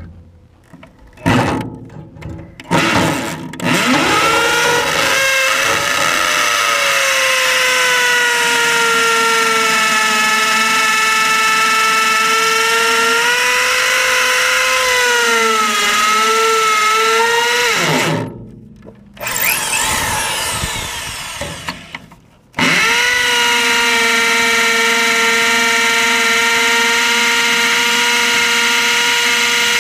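Hammer drill with a masonry bit boring into a concrete floor for an anchor bolt: a few short bursts, then a long steady run, which stops twice in the last third before running steadily again.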